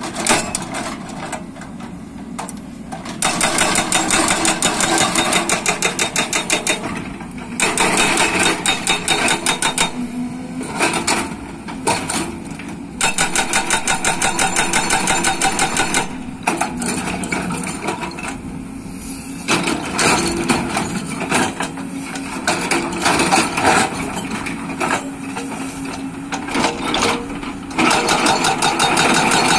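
JCB tracked excavator's hydraulic breaker pounding rock with rapid, evenly spaced blows, in spells of several seconds with short pauses between them, while the excavator's diesel engine keeps running underneath.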